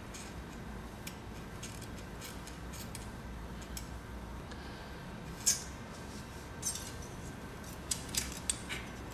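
Faint metallic clicks and light scrapes of a tool and a feeler gauge on the valve tappet adjuster of a Honda 250 cylinder head, as the clearance is set to a slight drag. A sharper click comes about five and a half seconds in, and a quick run of clicks near the end.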